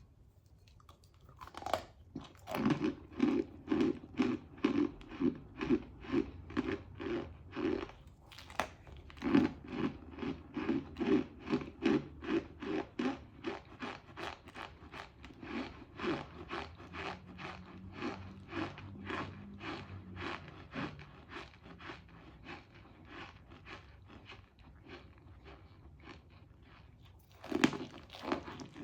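Cornstarch being eaten close to the microphone: a crunchy bite, then steady rhythmic chewing at about two chews a second that slowly grows softer. A fresh crunchy bite comes about a third of the way through and another near the end.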